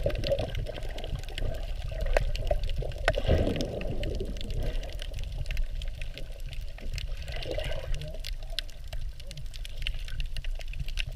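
Water moving around an underwater camera, heard muffled through its housing: sloshing and gurgling over a steady low rumble, with scattered sharp clicks.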